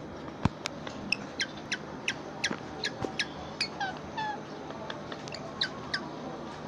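Parrot making a rapid series of short, sharp chirps, about two a second, some dropping in pitch, with a sharp click about half a second in.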